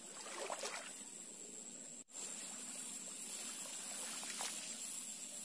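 Faint rustling of tall grass over a low, steady outdoor hiss, with a slightly louder rustle about half a second in.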